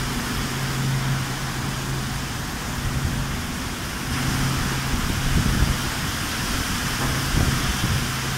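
A passenger train's coaches rolling past on wet track in heavy rain: a steady rumble of wheels on rail with a low drone and a few heavier low thumps, over the hiss of falling rain.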